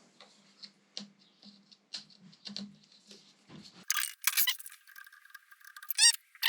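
Light clicks and taps of small hard objects being handled over a faint steady hum, then louder rattling clatters in the last couple of seconds.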